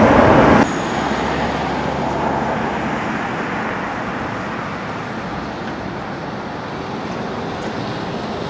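Steady outdoor town background noise, mainly distant road traffic, as an even rumble and hiss. A louder burst of street noise cuts off abruptly less than a second in.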